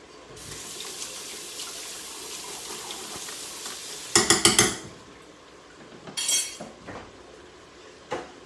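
Kitchen sounds: a steady hiss for about four seconds that stops abruptly, followed by a quick clatter of four or five knocks of pots, dishes or utensils, a smaller rattle about two seconds later, and one click near the end.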